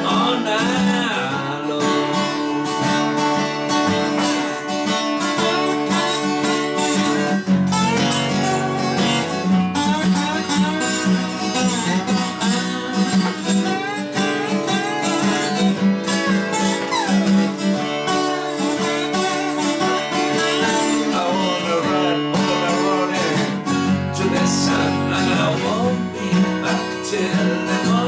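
Two acoustic guitars strummed and picked together in a bluesy rock song, with a man singing in some passages.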